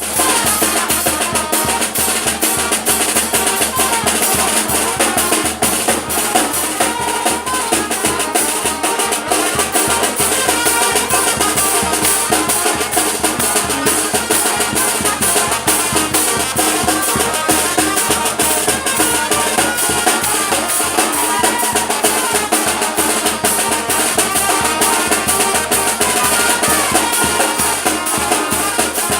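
Live music with drums and percussion, loud and continuous, the drums keeping a steady beat.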